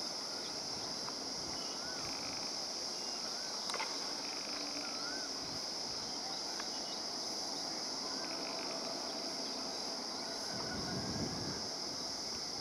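Steady high-pitched drone of insects with scattered short bird chirps and warbles. A low rumble rises briefly near the end from the approaching train.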